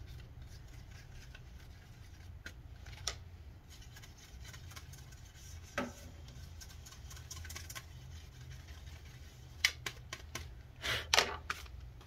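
Scattered light clicks and taps from handling a laptop CD drive while its dust is cleaned off, a few spaced seconds apart and then several in quick succession near the end, over a low steady hum.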